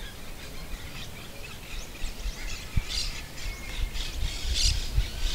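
Wild birds calling outdoors: short, bright chirps and squawks, loudest about three seconds in and again near the end, over a low uneven rumble.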